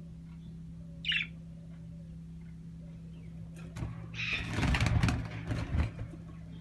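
A bird gives one short chirp about a second in, then about four seconds in a flurry of wing flapping and scuffling lasts some two seconds, over a steady electrical hum.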